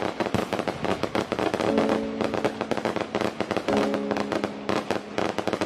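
A string of firecrackers hung beneath a hot-air balloon going off in rapid, continuous crackling pops.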